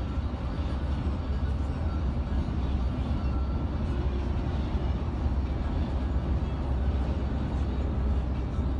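Mercedes-Benz Travego coach cruising at highway speed, heard from inside the cabin: a steady low rumble of engine and tyres on the road.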